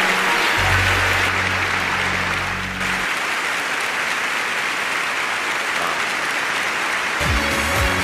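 Audience applause with music underneath, and a low bass note held for a couple of seconds near the start. Different music comes in near the end.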